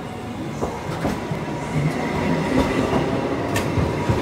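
Sapporo streetcar, car 3301, rolling past close by on its rails, getting louder about a second and a half in, with a few sharp clicks from the wheels.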